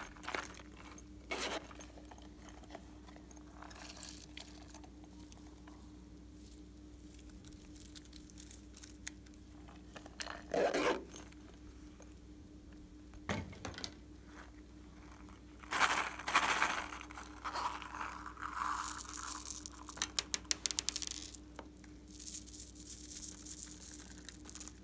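Scattered scrapes, rubs and crunches of hands handling a silicone zip coin purse, with a run of quick clicks in the second half, then plastic beads dropping into a glass tray of slime near the end. A faint steady hum lies underneath.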